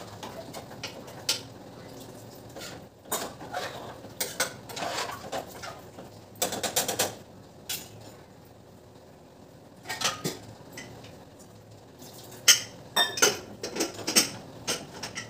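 Metal spoon scraping and knocking inside an aluminium pressure cooker as the curry is stirred, in scattered clatters. Near the end a quick run of louder metal clanks comes as the pressure-cooker lid is set on and locked.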